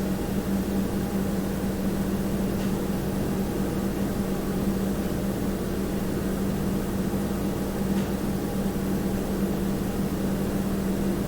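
Household room tone: a steady, unchanging hum with a constant low tone and a low rumble, with two faint ticks, one early and one past the middle.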